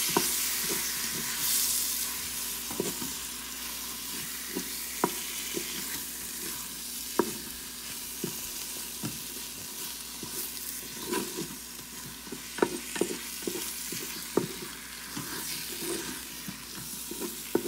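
Sliced onions, tomato and spice masala frying in oil in a stainless steel pot while a wooden spatula stirs them: a steady sizzle that eases a little after the first couple of seconds, with scattered sharp clicks and scrapes of the spatula against the pot.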